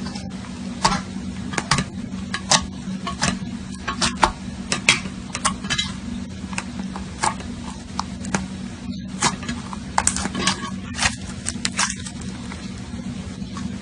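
Slime being squeezed and poked by hand, giving irregular sticky clicks and pops over a steady low hum.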